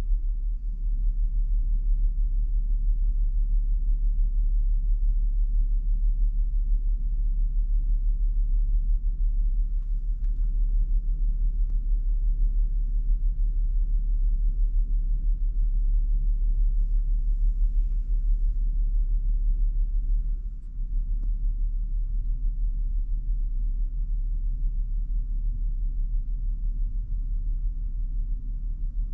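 Steady low rumble of the ferry's engines and machinery carried through the cabin, dipping briefly about two-thirds of the way through.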